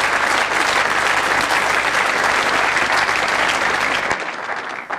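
A large audience applauding, a dense patter of many hands clapping that dies away near the end.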